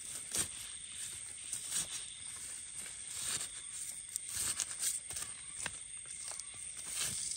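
Knife blade scraping and prying through soil and dry leaf litter to dig out termite mushrooms: short, irregular scrapes and crunches, over a steady high hiss in the background.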